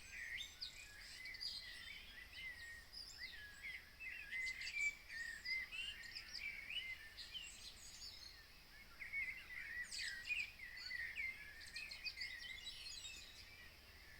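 Early-morning chorus of several songbirds: many overlapping chirps and warbling phrases, with a brief lull around the middle. A faint steady high hiss runs underneath.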